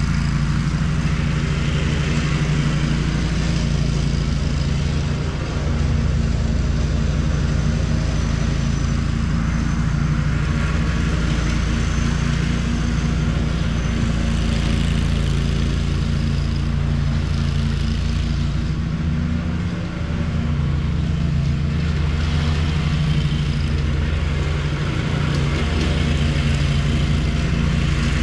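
Riding lawn mower's engine running steadily at a constant pitch.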